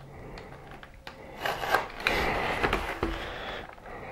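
A small box cutter slicing the seal along the edge of a cardboard box: a rough scraping cut that starts about a second and a half in and lasts about two seconds, with a few light clicks before it.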